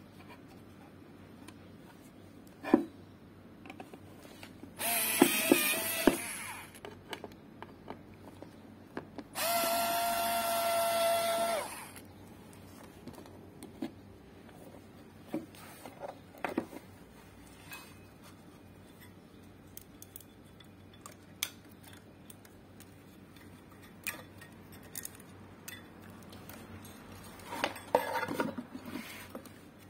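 Cordless electric screwdriver backing out the screws that hold a speaker amplifier's board and panel. It runs with a steady whine twice, first for about a second and a half, then for about two and a half seconds. Sharp clicks and knocks of screws and parts being handled fall in between, with a louder knock near the start.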